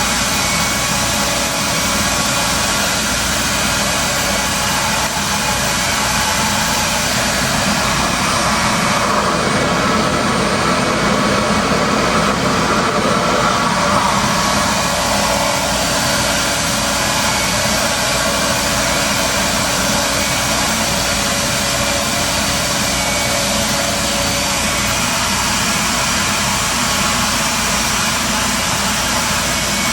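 RevAir reverse-air hair dryer running at low heat and maximum suction: a loud, steady rush of drawn-in air with a motor hum. Its sound shifts for a few seconds around the middle, then settles back.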